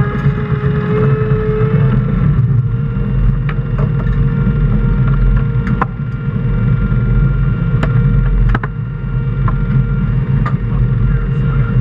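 Skater 368 offshore racing catamaran's engines running steadily at speed, heard from inside the enclosed cockpit as a loud low drone with a steady higher whine over it. A few short sharp knocks stand out, the loudest about eight seconds in.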